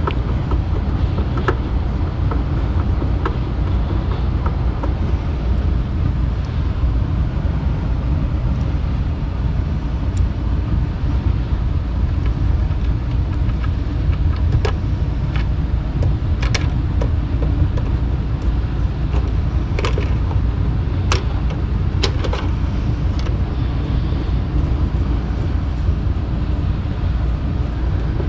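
A furnace running with a steady low rumble. Scattered small clicks and taps from hands and a screwdriver working on the condensate pump's wiring come through it, most of them in the middle.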